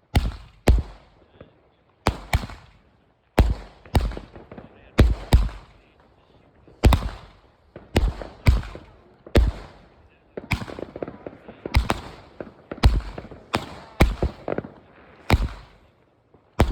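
Fireworks bursting overhead: a rapid series of loud bangs, one or two a second, each trailing off in a short rumble, with a denser patch of smaller crackling pops about two-thirds of the way through.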